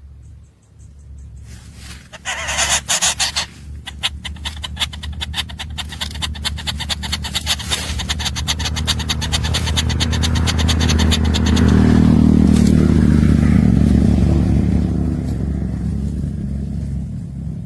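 A motor vehicle's low engine rumble that builds to a peak about twelve seconds in and then fades. Over the first half it carries a rapid, even rattling clatter that starts with a loud burst about two seconds in.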